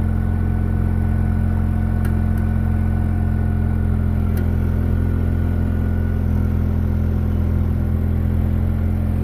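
Kubota tractor's diesel engine running steadily at constant speed under load in low gear, dragging old fence wire out of the ground.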